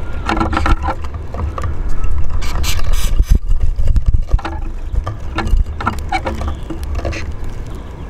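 Eurasian siskins and a greenfinch feeding on a wooden bird table: irregular clicks, taps and scuffles of beaks pecking seed, feet landing and wings fluttering, busiest a couple of seconds in, over a steady low rumble.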